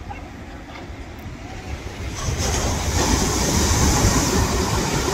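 Wind buffeting the microphone over the rush of ocean surf. The noise swells and stays louder from about two seconds in.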